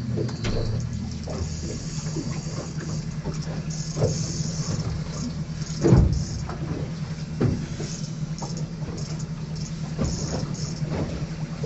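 A motor running steadily with a low hum, with a hissing splash-like noise coming and going and several knocks, the loudest about six seconds in.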